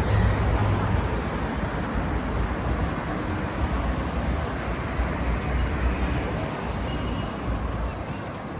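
Steady street traffic noise with a low rumble, easing slightly near the end.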